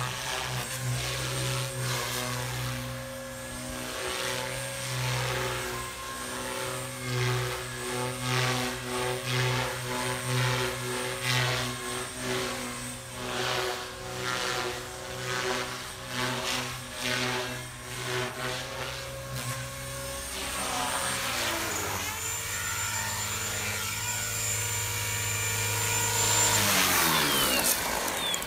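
JR Forza 450 electric radio-controlled helicopter in flight, its motor and rotor whine swelling and fading as it moves around. About two-thirds of the way through the pitch drops and holds lower, growing louder as it comes close, then near the end the whine slides down as the rotors spool down after landing.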